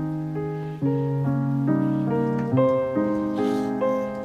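Background piano music, a slow melody with a new note or chord about every half second.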